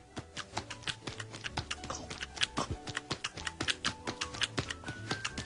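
Cartoon eating sound effect: rapid crisp chomping clicks, several a second, as a character gobbles brownies one after another, over quiet background music.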